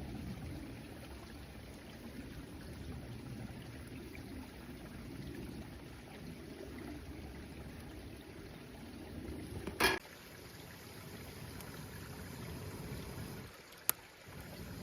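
Mountain stream flowing, a steady low rushing. Two sharp clicks break it, about ten seconds in and near the end.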